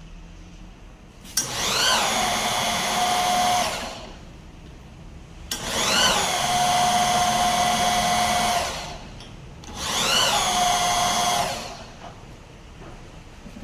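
A power-tool motor run three times in short bursts, each time spinning up with a quickly rising whine and then holding a steady high whine for two to three seconds before winding down.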